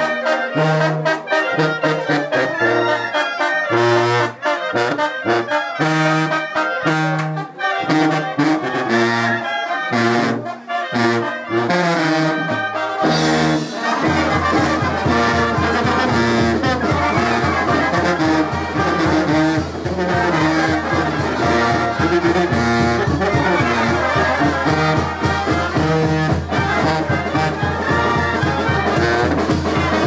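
A Mixtec village brass band with two tubas plays dance music: trumpets and trombones over a stepping tuba bass line, with regular drum beats. About fourteen seconds in, the low end changes to a steady bass under the band.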